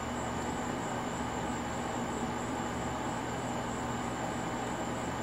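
Steady, unchanging background noise: a constant low hum under an even hiss, with a thin, steady high-pitched whine on top and no distinct knocks or calls.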